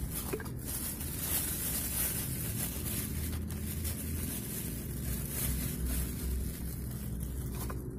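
Plastic bag rustling as it is handled close to the microphone, a steady hissy crinkle over a low wind rumble.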